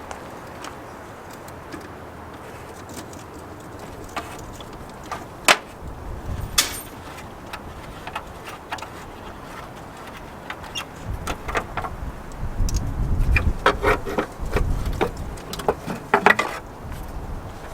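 Clicks, snaps and clunks of plastic engine-bay parts being worked loose by hand, with two sharp snaps about five and a half and six and a half seconds in. Busier knocking and handling noise with a low rumble follows in the last few seconds.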